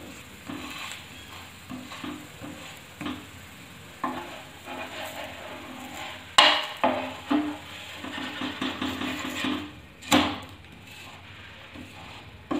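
A perforated wooden spatula pressing, scraping and knocking against a nonstick tawa as a laccha paratha is pressed and turned, with short irregular scrapes and two louder knocks, about six and about ten seconds in.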